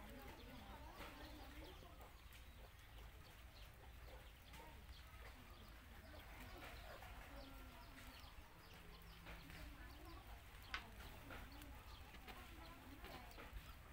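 A rabbit chewing a carrot: faint, scattered crunching clicks, with one sharper click about eleven seconds in, over faint wavering calls in the background.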